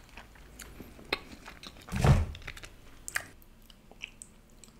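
Close-up chewing of grilled chicken, with small wet clicks and crunches scattered throughout and one louder, lower mouth sound about two seconds in.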